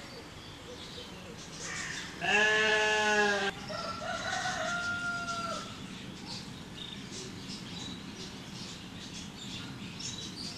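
A loud, drawn-out animal call about two seconds in, in two parts: a strong pitched cry, then a higher note held for about two seconds. Faint short chirps follow.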